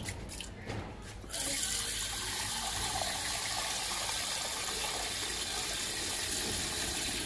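Tap water running into a terracotta clay bowl. After a few light knocks, the flow comes on suddenly about a second in and then runs steadily as the bowl fills.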